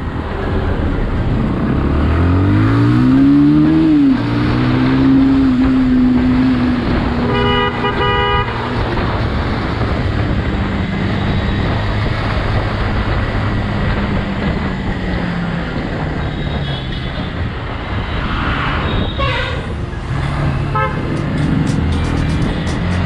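Bajaj Pulsar 180's single-cylinder engine pulling away, its pitch rising for a couple of seconds and then holding steady, under constant wind rush on the microphone. About a third of the way in a vehicle horn honks for about a second, and other brief traffic horns sound near the end.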